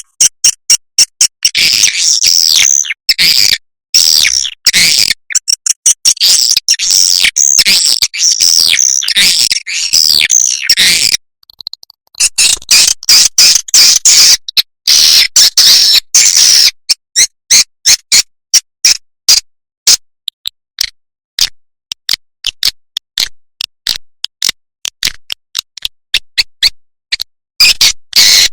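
Swiftlet lure-call recording: dense, high twittering chirps of a swiftlet colony, with a short break near the middle, then a long run of rapid sharp clicks before the chirping resumes near the end.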